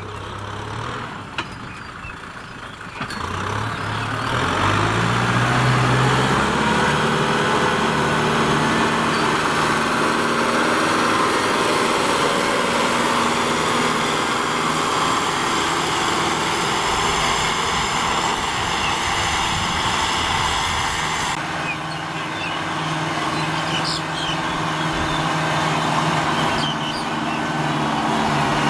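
Kubota M6040SU tractor's diesel engine running under load while pulling a disc plough through dry soil. The engine speed climbs about four seconds in, then holds steady.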